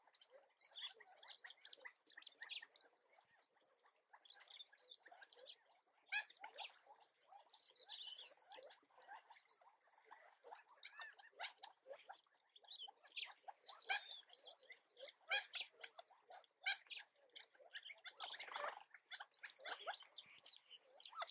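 Gambel's quail giving soft, scattered chirps and short clicking notes, faint and irregular throughout.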